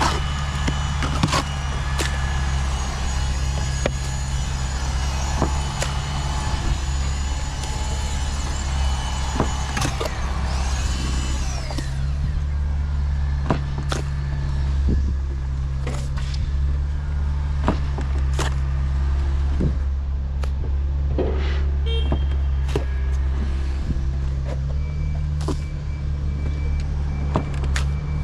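Steady low engine drone, with scattered clicks and knocks over it.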